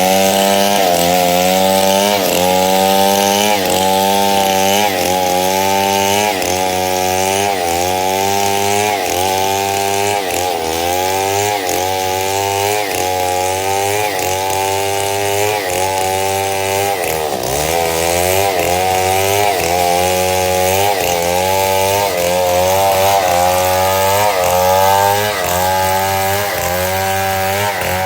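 Chainsaw running at full throttle while cutting wood, its engine pitch dipping and recovering roughly once a second as the chain bites and frees, with one deeper bog about two-thirds of the way through.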